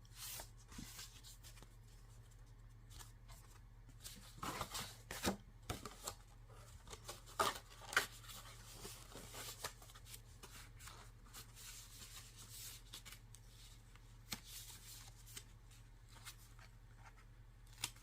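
Hands handling the packaging and contents of a Blu-ray box set: scattered rustles, clicks and light taps, busiest between about four and ten seconds in, over a steady low hum.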